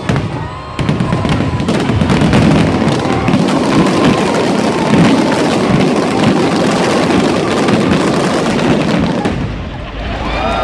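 Fireworks going off in a dense, continuous barrage of bursts and crackling, starting about a second in and easing off near the end.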